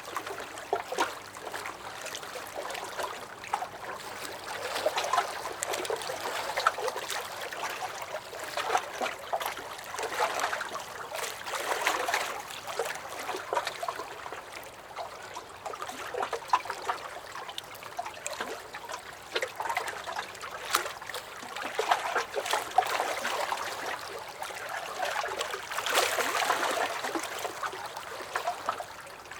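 Small lake waves lapping and splashing against a dock, in uneven swells every few seconds with many small slaps and trickles of water.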